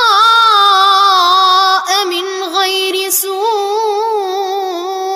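A boy's voice chanting Quran recitation in tajweed style, drawing out long notes with ornamented wavering in pitch, with one brief breath break near the middle.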